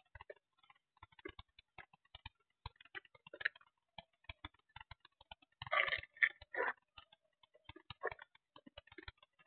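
Irregular light clicks and rustles of a hand working an RC transmitter's controls close to the microphone, with a louder burst of rustling about six seconds in.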